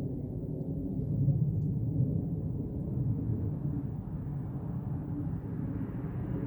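A steady low rumble in the sky, with most of its weight in the low range; its source is unexplained and is not wind or passing planes by the uploader's account.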